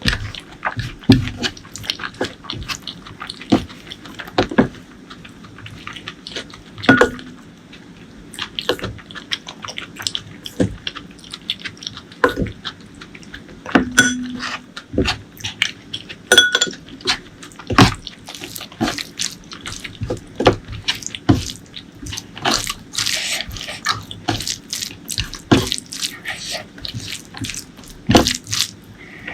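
Close-miked wet eating sounds: chewing and lip smacking, with many short sharp clicks at an irregular pace of a few per second.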